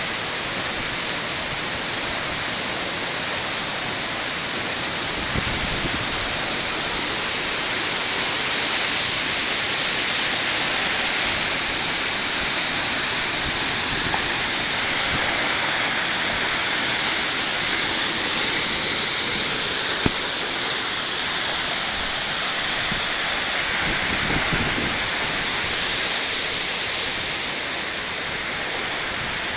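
Waterfall pouring: a steady rushing of falling water.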